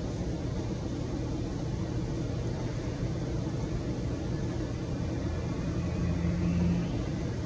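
Steady low background rumble with a faint hum, the hum swelling briefly near the end.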